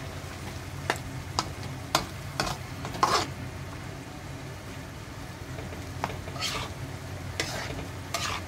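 Spatula stirring chopped pechay stems and chayote in a wok over the heat, scraping and tapping against the pan about nine times, with a frying sizzle and a steady low hum underneath.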